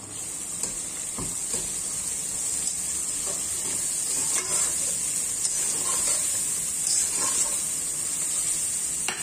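Onions, carrots and raisins frying in oil in a pot, sizzling steadily and growing louder just after ground spices are tipped in, while a metal spatula stirs and scrapes through the masala.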